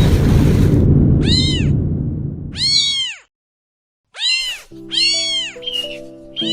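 A kitten meowing about five times, short thin high mews that each rise and then fall in pitch. A low rumble under the first meows fades out about three seconds in, and soft music with held notes comes in about halfway.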